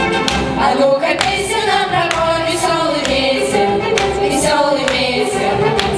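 Choir singing a lively song with musical accompaniment, a sharp beat falling about once a second.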